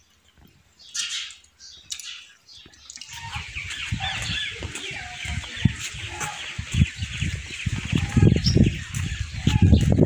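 Gusty wind buffeting the microphone, starting about three seconds in as irregular low rumbling blasts that grow stronger toward the end, with birds chirping behind it.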